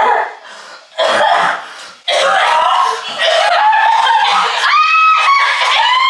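A woman retching, gagging and coughing loudly in short bouts about a second and two seconds in, then straining continuously with one drawn-out cry near five seconds; the vomiting is faked for a prank.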